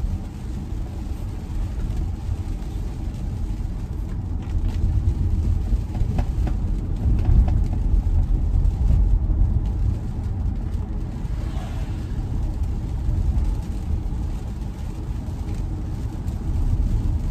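Road noise inside a Tesla electric car driving on a wet road in the rain: a steady low rumble of tyres on wet pavement, with no engine sound.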